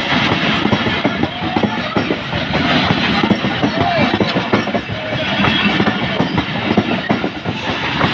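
Passenger coaches of an express train rushing past close by, their wheels clattering steadily over the rail joints.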